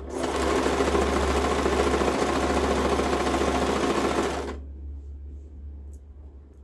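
Sewing machine stitching fabric at a steady fast rate, stopping suddenly about four and a half seconds in.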